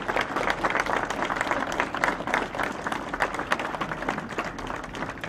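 Audience applauding: many hands clapping together, easing off slightly toward the end.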